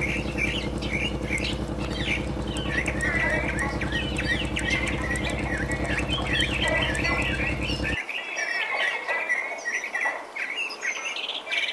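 A chorus of many small birds chirping and twittering, with a low, steady buzzing hum underneath that cuts off suddenly about eight seconds in.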